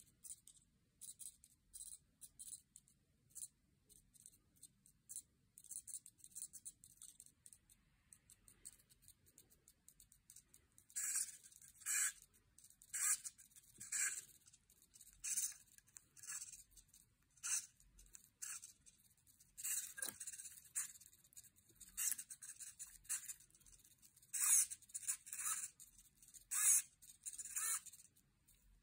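Small hobby servo motors moving the fingers of a 3D-printed robotic hand, each move a short high-pitched buzz. They are faint and sparse at first, then louder at about one a second through the second half.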